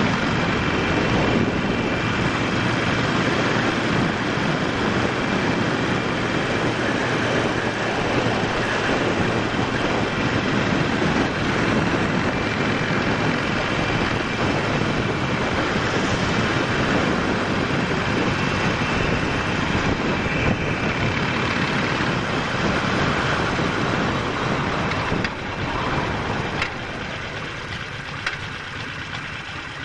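Harley-Davidson Sportster 48's air-cooled V-twin running under way, mixed with steady wind rush over the camera. Near the end the level drops as the bike slows.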